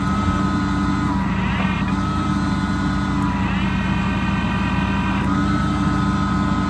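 Ram 5500 service truck's 6.7 L Cummins diesel running steadily while the truck-mounted crane is worked. Whining tones from the crane drive step in pitch as its functions start and stop, rising higher about a second in and again from about three and a half to five seconds.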